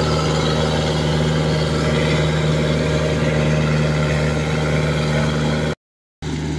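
Kubota DC105X combine harvester's diesel engine running steadily under load through an aftermarket exhaust while cutting rice. The sound drops out for a moment near the end.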